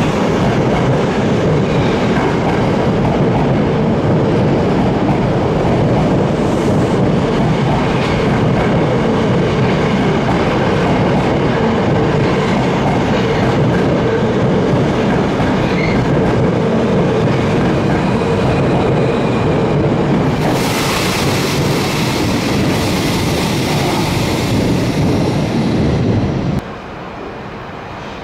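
Midosuji Line subway train running along the platform, its wheels clattering on the rails with a steady tone underneath. A hiss joins for a few seconds near the end, then the sound drops off abruptly.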